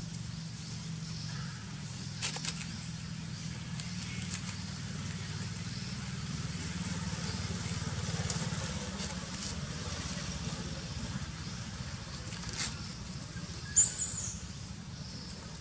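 A low steady hum with a few soft rustling ticks as baby macaques tumble on dry leaf litter, and a short high squeak near the end, the loudest sound.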